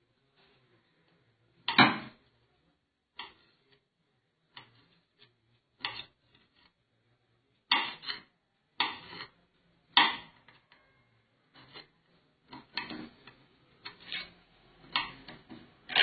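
A kitchen knife knocking on a cutting board while ham and cheese are sliced: about a dozen sharp taps at uneven intervals, a few of them loud.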